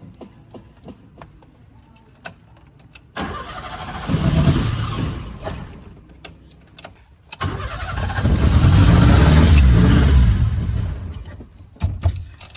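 Fiat 147's four-cylinder engine catches twice, a few seconds each time, rising in revs and then dying away, with light clicks before the first attempt. The engine won't keep running, which the uploader puts down to a carburetor flooded by pumping the pedal, causing misfires.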